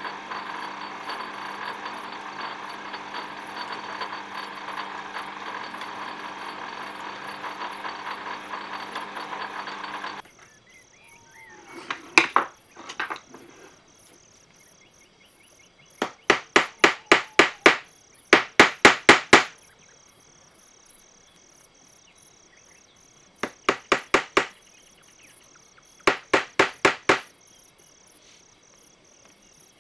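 A metal lathe runs steadily while a drill bit in the tailstock chuck bores into the spinning workpiece, then shuts off suddenly about ten seconds in. After that a hammer taps a small metal part held in a bench vise, in several quick bursts of about six to eight light blows each.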